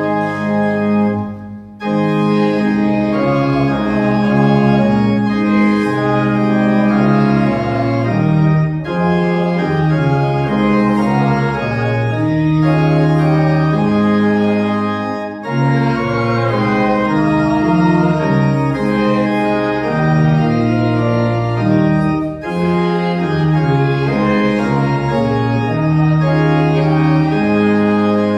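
Organ playing a hymn in full, sustained chords, with a short break between phrases about every seven seconds.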